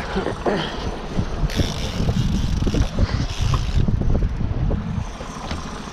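Wind gusting across the microphone on an open fishing boat, heaviest from about a second and a half to five seconds in, over the steady run of the boat's outboard motor.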